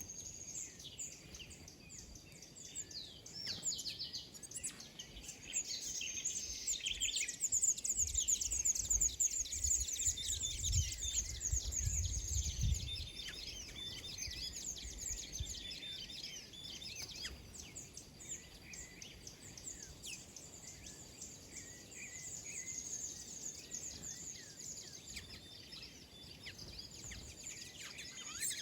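Many small birds chirping and twittering at once, a dense overlapping chatter of short high chirps. A low rumble joins in for a few seconds near the middle.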